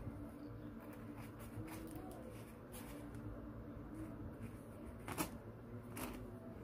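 Quiet room tone with a low steady hum, broken by a few soft clicks and rustles, the clearest about five and six seconds in.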